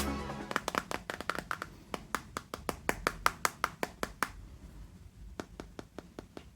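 A quick run of light, sharp taps and clicks from hands handling things, about four or five a second, breaking off after about four seconds; a few sparser clicks follow near the end.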